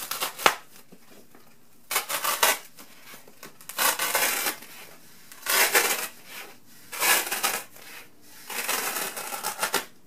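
A utility knife slicing lengthwise through a foam pool noodle in about five short rasping strokes, each under a second long.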